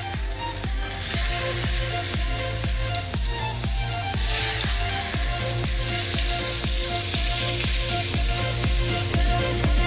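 Half-boiled potato cubes sizzling as they are dropped into hot oil in a frying pan. The sizzle swells about a second in and again around four seconds, as more pieces go in. Background music with a steady beat plays throughout.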